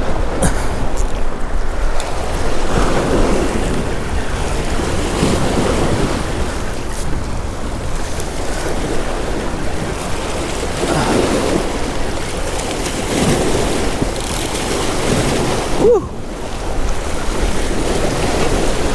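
Wind on the microphone and waves washing on the shore, rising and falling in uneven surges.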